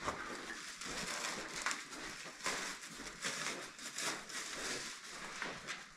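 Clear plastic wrapping crinkling and crackling as it is peeled off a new cartridge water filter, in irregular small crackles.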